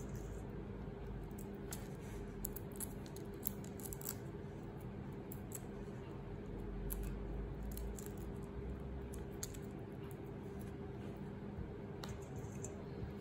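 Small irregular clicks and crackles of shrimp shells being peeled and broken off, over a steady low hum.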